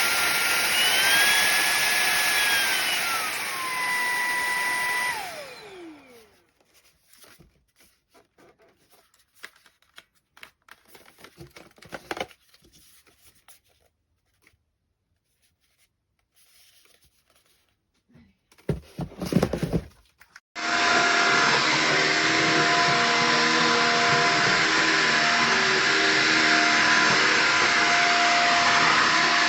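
LEVOIT cordless stick vacuum running: its motor whine rises in pitch for a couple of seconds, drops back, then spins down and stops about five seconds in. After some quiet with small handling clicks and a brief burst of sound, the vacuum starts again about two-thirds of the way through and runs steadily with a different, more tonal hum.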